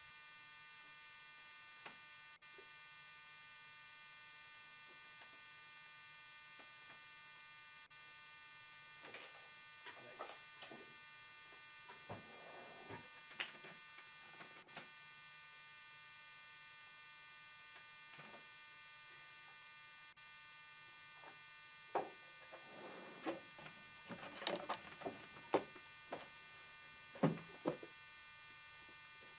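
A steady electrical hum with many overtones and a faint hiss. Scattered soft clicks and knocks sound over it, most of them in the last few seconds.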